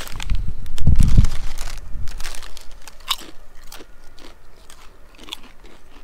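Crisp lentil chips being bitten and chewed: a loud bite about a second in, then a run of crunching chews that slowly fade.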